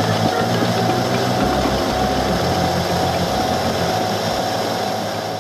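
Metal lathe running and cutting metal, a steady hiss with a faint whine, under background music. The machine sound fades near the end.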